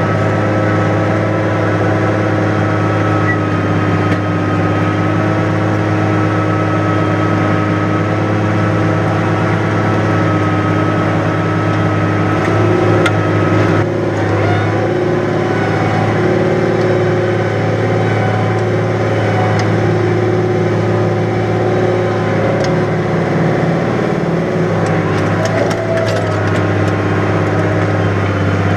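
New Holland 100-90 tractor's diesel engine running steadily under load while ploughing heavy wet ground, its note shifting slightly about halfway through.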